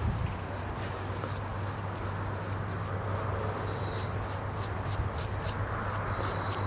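Insects chirping in a regular rhythm of about three chirps a second over a steady low hum, with two short higher calls later on.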